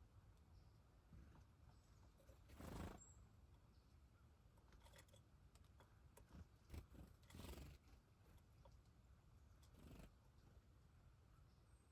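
Near silence, with a few faint brief rustles and small clicks.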